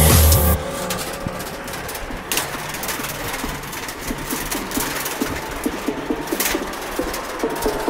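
Bicycle rolling across a footbridge deck: a steady rush of tyre noise with many small rattles and clicks and a couple of sharper knocks. Background music cuts off about half a second in, and a thin steady whine comes in near the end.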